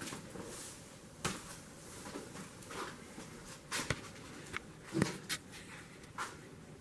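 Scattered light knocks, clicks and rustles of handling in a small room, about half a dozen spread irregularly, the loudest about five seconds in.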